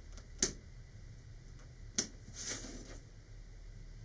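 Hobby knife cutting a small notch in a thin card ring on a cutting mat: two sharp clicks about a second and a half apart, the second followed by a short scratchy scrape of the blade through the card.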